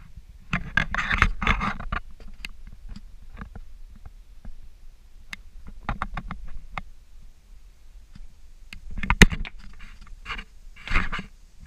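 Scraping and shuffling of shoes on a concrete porch, with scattered clicks. About nine seconds in comes a single sharp click, the loudest sound here, and near the end a scraping rattle as a plastic wheeled trash bin is tilted and pulled.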